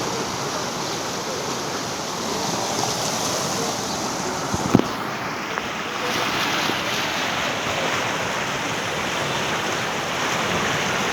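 Rain falling steadily, a constant hiss that grows a little louder about six seconds in, with one brief knock a little before five seconds.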